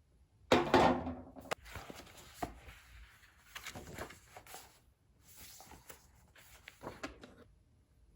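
Objects being handled: a clatter about half a second in, then scattered clicks, knocks and rustles that stop shortly before the end.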